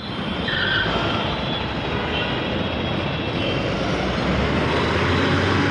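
Steady motor-vehicle engine and traffic noise, with a few faint high chirps in the first few seconds.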